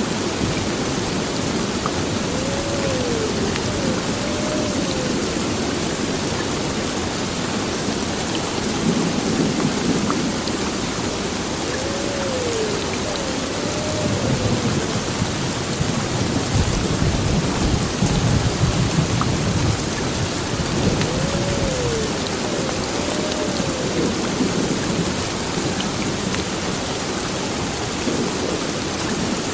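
Heavy rain falling steadily on an old building, with thunder rumbling low beneath it, swelling about a third of the way in and most strongly past the middle. A faint pair of rising-and-falling tones recurs about every nine seconds.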